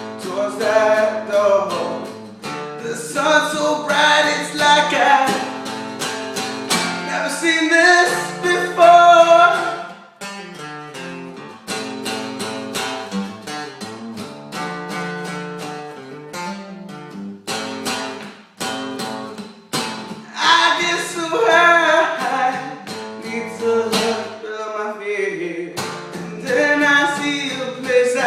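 A song: a voice singing over strummed acoustic guitar, with a quieter stretch in the middle where the guitar carries on with little or no singing.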